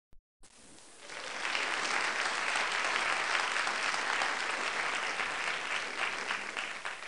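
Applause from many hands, a dense patter of claps that swells about a second in and thins out near the end.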